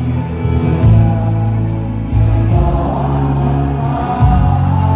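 A slow ballad sung live into a handheld microphone over instrumental backing, with sustained bass notes beneath the voice.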